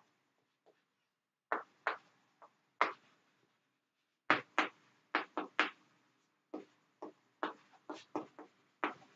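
Chalk writing on a chalkboard: an irregular string of short, sharp taps and scratches as letters are written, pausing for about a second and a half at the start and again just after the middle.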